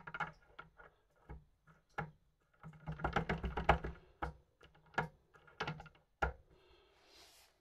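Light clicks and taps from hands fitting the drive pinion onto the shaft of a scooter-truck starter motor held in a vise, with a quick run of clicks about three seconds in.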